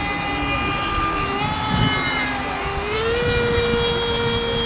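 Radio-controlled model airplane engine running in flight, a steady high buzz whose pitch rises about three seconds in and then holds.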